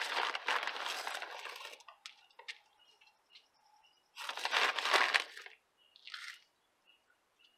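Earthworm castings being poured and shaken from a bag into a grow bag of potting mix and perlite. Two bursts of rustling: the first at the start, about two seconds long, and the second about four seconds in, followed by a short smaller one.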